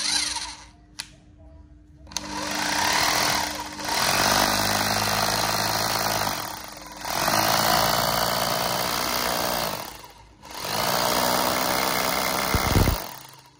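A German-made 680 W rotary hammer drill (drill, hammer-drill and chisel modes) is run on the trigger in four bursts of a few seconds each. Each run builds up gently, as its soft start brings the motor up to speed. There is a low thud near the end.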